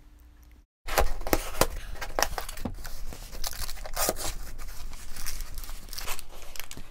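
Packing tape being peeled and torn off a cardboard box and the flaps pulled open: a dense run of crackling, tearing and rustling that starts about a second in.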